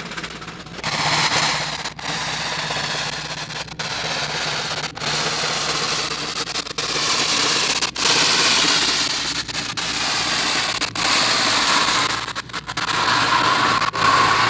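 Steam traction engine working in the field, heard through a worn old film soundtrack: steady hiss with crackle and frequent brief dropouts. Near the end a steam whistle starts blowing a steady tone.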